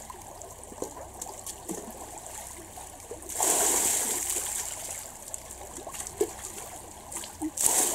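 A shallow stream running over stones. About three seconds in, a potful of water poured over a man's head to rinse soap from his hair splashes down into the stream and fades over a second or two; another short splash comes near the end.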